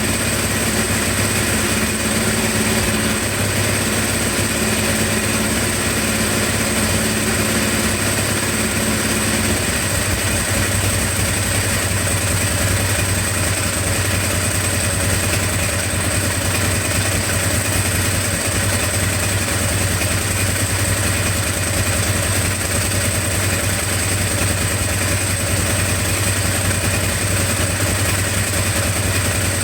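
Ducati 749's 90-degree V-twin engine idling steadily, with a change in its note about ten seconds in.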